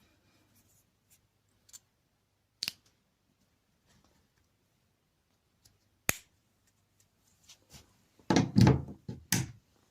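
Scattered sharp plastic clicks, then a louder cluster of knocks and rattles near the end, from a UK mains plug and its fuse being handled and refitted.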